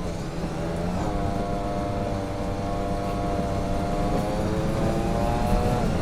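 Armoured personnel carrier's engine running under a heavy low rumble. Its pitch drops at the start, climbs about a second in, then holds fairly steady, dipping again near the end.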